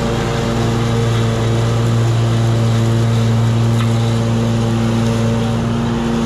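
Gravely 52-inch residential zero-turn mower's engine running under load with the blades engaged, cutting through tall grass: a steady, even drone.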